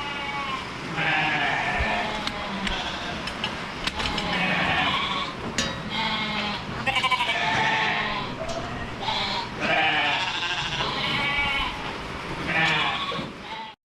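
A flock of Shetland sheep bleating, call after call overlapping from several animals, with the sound cutting off suddenly near the end.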